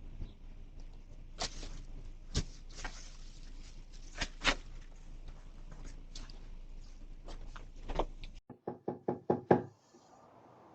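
Scattered clicks and thumps, then a fast run of about seven knocks on a door near the end, growing louder.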